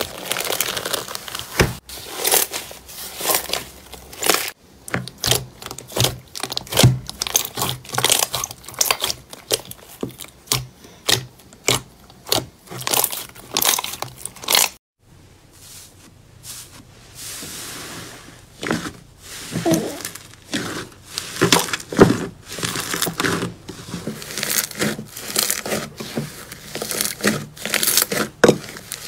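Paper strips laid over slime being crinkled and peeled off, then hands kneading and pressing the slime, giving a dense run of short crackles, pops and squishes. The sound breaks off briefly about halfway through before the squishing and popping resumes.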